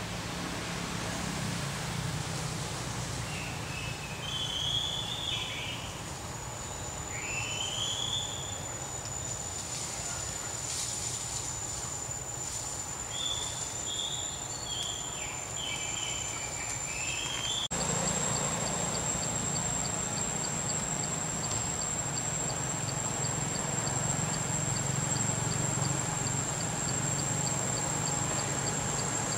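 Forest ambience: insects keep up a steady high-pitched drone over a low hum, with a string of short, high chirping calls in the first half. About halfway through the sound cuts, and afterwards the drone goes on with an even ticking of about three ticks a second.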